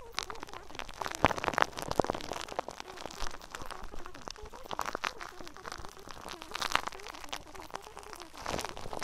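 Dense, irregular crackling and crunching noise with many sharp clicks.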